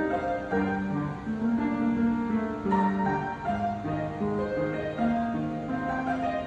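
Instrumental music: a slow melody of held notes changing about every half second.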